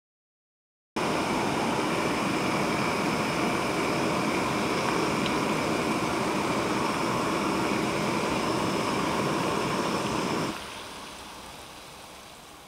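Canister gas stove burner running at full flame under an aluminium pot of water, a loud steady rushing hiss that starts abruptly; about ten seconds in it drops sharply and fades away as the burner is shut down.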